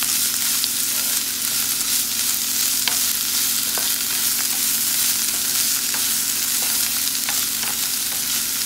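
Diced bell peppers and onion sizzling in hot oil in a nonstick frying pan, stirred with a wooden spatula that scrapes and taps the pan now and then.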